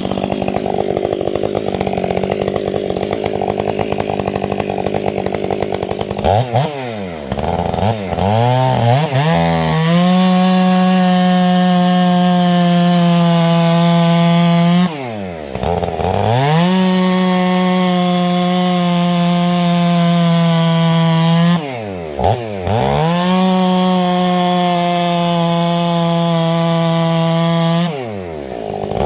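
Stihl 500i fuel-injected two-stroke chainsaw with an 8-pin rim sprocket, cutting firewood. It runs rough and noisy under load at first. From about six seconds in, it is repeatedly brought up to a steady high speed and held there about five seconds at a time, dropping back briefly and revving up again three times.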